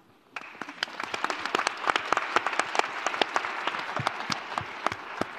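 Audience applauding, many hands clapping together. It starts about a third of a second in and tapers off near the end.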